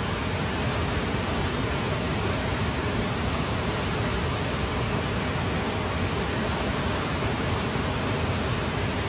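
Steady rushing of a fast-flowing rocky river.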